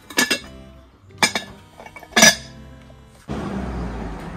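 A few sharp, ringing clinks, as of china or glass knocked together, spaced irregularly. About three seconds in they cut off abruptly into steady outdoor background noise.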